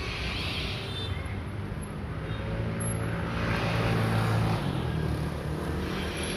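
A motor vehicle engine running nearby amid street traffic, its low hum swelling about halfway through and then easing.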